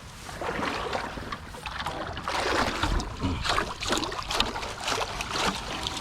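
Creek water splashing and sloshing irregularly as a person wades through it and sweeps a dip net, with a few dull low thuds about halfway through.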